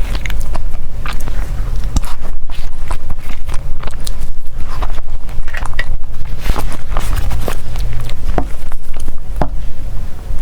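Close-miked eating sounds: dessert being bitten and chewed, with many sharp mouth clicks and crackles over a steady low rumble.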